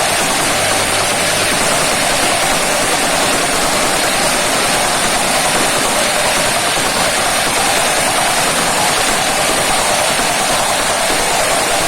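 Tamping rammer (stamper) for compacting sand and gravel, running: a loud, steady, unbroken din.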